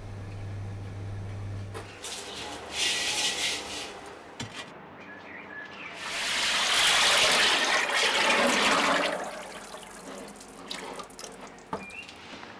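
Liquid poured from a plastic bucket into a plastic basin, splashing loudly for about three seconds in the middle, with small knocks of plastic and handling around it. A low steady hum plays for the first two seconds, then stops.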